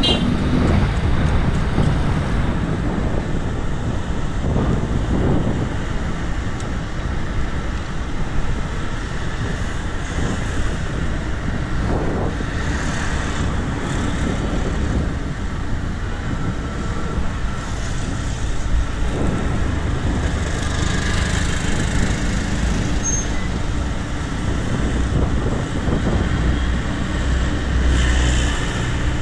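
Road traffic noise with a steady low rumble, heard from a bicycle riding along the road.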